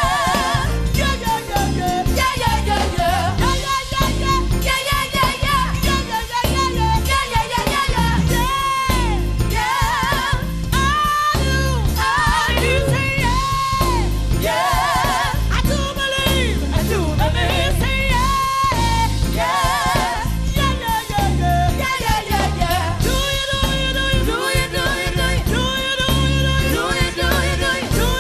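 Gospel song performed live: a woman's lead voice singing with a wide, wavering vibrato over a band with bass and drums.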